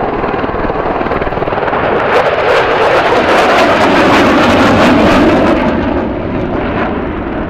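F-16 fighter jet making a show-of-force pass: a rush of jet noise that swells from about two seconds in, is loudest around four to five seconds, and fades near the end. An AH-64 Apache helicopter's rotor runs underneath.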